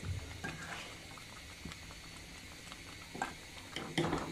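Thick haleem being stirred with a ladle in a pan over the heat: wet, bubbling and squelching sounds with scattered small clicks, and a few louder scrapes or knocks of the ladle against the pan near the end.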